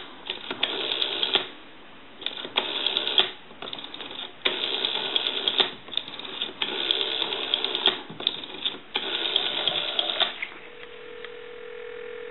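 Rotary dial of a Stromberg-Carlson 1212 desk telephone being turned and let spin back for about seven digits, each return a rattling whir of about a second with short pauses between. Near the end a steady ringback tone comes on the line as the dialed number rings.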